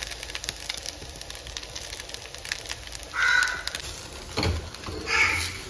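A crow cawing about three seconds in and again near the end, over faint crackling from the frying pan.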